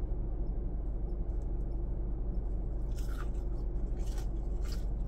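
Biting into a fried onion ring: three short, crisp crunches of the battered coating, the first about three seconds in, over a steady low hum.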